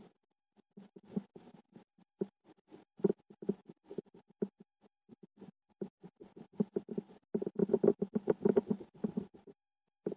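A fork scraping and tapping through baked potato on a plate in quick irregular strokes, thickest and loudest near the end.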